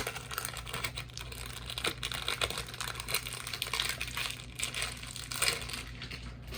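Crinkling plastic and quick, irregular clicking of plastic pieces as a new 6x6 speed cube is handled and turned.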